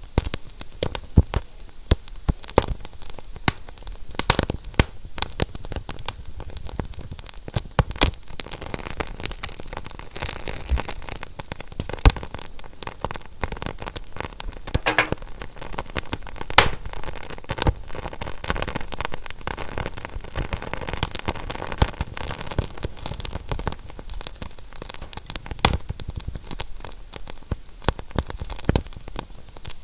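Fire crackling, with frequent sharp pops and snaps over a steady hiss; one pop about twelve seconds in is louder than the rest.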